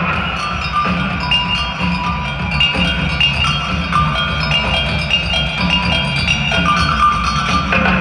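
Live rock band in an arena playing an instrumental passage led by percussion: short, bright pitched notes in a running line over drums and bass, heard from high in the arena seats.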